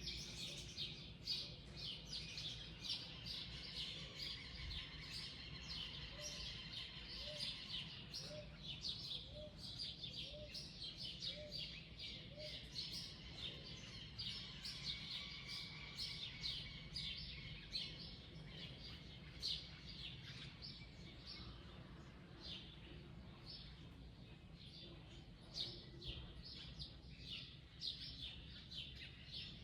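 Several wild birds chirping and singing together in a dawn chorus, with many quick, high, overlapping notes. A lower call rises in pitch and repeats about once a second from about six to thirteen seconds in.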